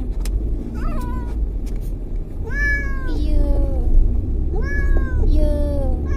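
A domestic cat meowing repeatedly, about five drawn-out meows that rise and then fall in pitch, the complaint of a cat that hates car rides. A steady low rumble from the moving car runs underneath.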